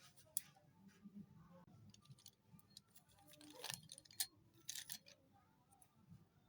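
Slate pencils snapping and crunching in scattered sharp cracks. The loudest comes about three and a half seconds in, followed quickly by two more, with faint small ticks in between.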